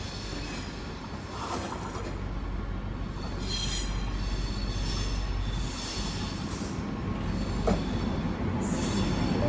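SNCB AM96 electric multiple unit rolling slowly in to the platform, its wheels squealing in several short bursts over a steady rumble that grows louder as it approaches. A single sharp click comes near the end.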